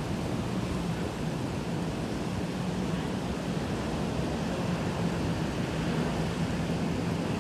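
Steady hiss of heavy, wind-driven rain in a strong gusty wind.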